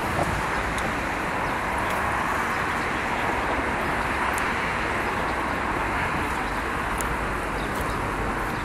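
Steady motor vehicle noise, an even rumble and hiss with no single event standing out.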